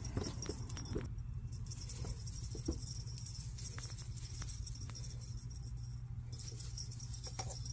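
Faint scattered taps and light rustles of a Bengal kitten playing on wooden deck boards, over a steady low rumble of outdoor background noise.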